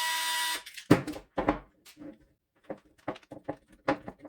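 A short whir lasting under a second at the start, then irregular clicks and knocks of plastic charger housing parts and a circuit board being handled on a bench.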